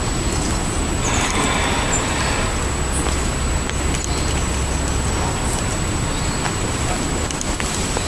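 Steady low rumble of distant road traffic, swelling briefly about a second in, with a few faint high bird chirps.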